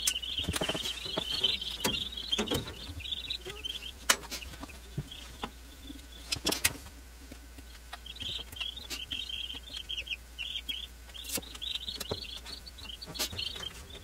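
A brood of day-old Cornish Cross broiler chicks peeping together, a dense high chatter that thins out in the middle and swells again later. A few sharp clicks and knocks stand out here and there.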